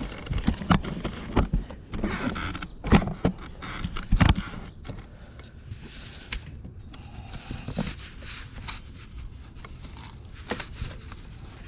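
Hands working corrugated plastic drain pipe and its mesh sock: a quick run of knocks, clicks and rustling over the first few seconds, then only a few scattered clicks.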